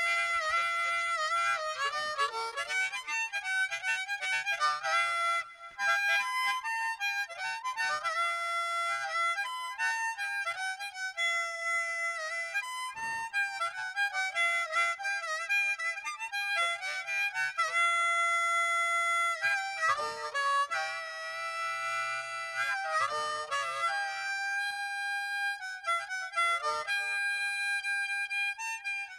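A song playing in stereo: a melody of held, slightly wavering notes over very little bass, with a brief drop in level about five seconds in.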